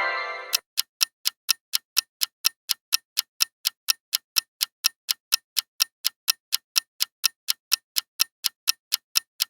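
Ticking clock sound effect, the countdown timer of a quiz, giving rapid, even ticks about four to five times a second. A short pitched sound effect fades out in the first half second, and the same sound starts again right at the end.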